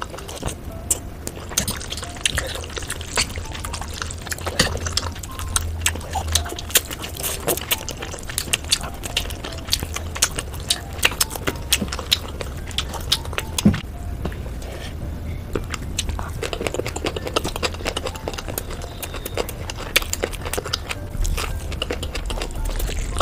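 A person eating spicy noodles: wet slurping and chewing with many short, sharp mouth clicks and smacks at irregular spacing.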